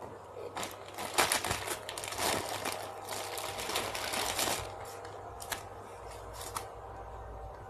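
Hands rummaging among squishy toys and their packaging: a flurry of rustling and light rapid clicking for a few seconds, then a couple of single clicks.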